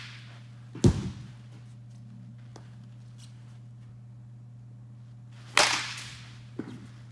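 A baseball bat striking a ball off a batting tee with a sharp crack about five and a half seconds in, followed a second later by the ball landing with a lighter thud. A heavier thud about a second in is the ball from the previous swing hitting home. A steady low hum runs underneath.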